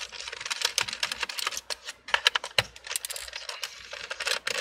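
Quick, irregular run of small clicks and taps from a hand working the hidden screws and screwdriver on a laptop's bottom cover, with a brief pause about two seconds in.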